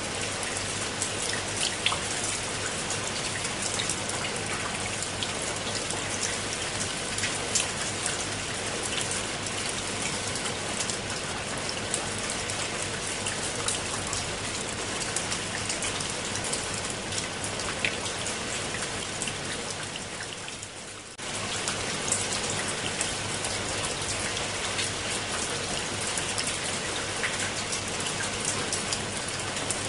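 Steady rain falling on leaves and wet stone steps: a dense, even patter of many small drop hits. About twenty seconds in the sound dips briefly, then cuts back in suddenly.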